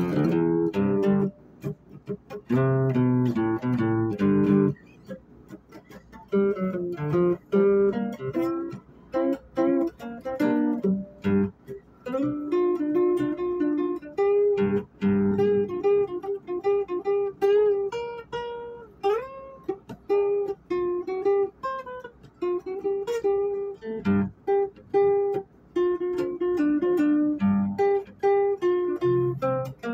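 Guitar music: plucked single notes and chords in phrases, with brief pauses between them and a few sliding notes.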